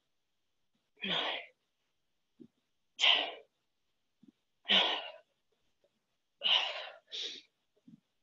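A woman's short, sharp breath exhales with each rep of a boat-pose crunch, five in all, about one every two seconds, with the last two close together and silence between them.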